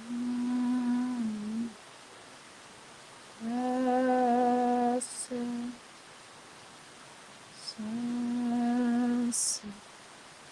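A woman humming three long, steady notes on about the same low pitch, each lasting a couple of seconds with short pauses between; the first note dips slightly at its end. Brief hisses come at the ends of the second and third notes.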